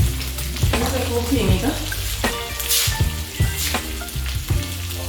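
Chopped pepper and beef sausage sizzling in a frying pan while a spoon stirs and scrapes, knocking against the pan every second or so, over a steady low hum.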